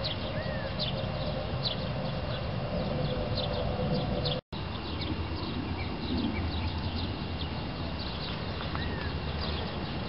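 Birds chirping outdoors: many short, high chirps repeating irregularly, with an occasional whistled note, over a steady low hum. The sound cuts out for an instant a little under halfway through.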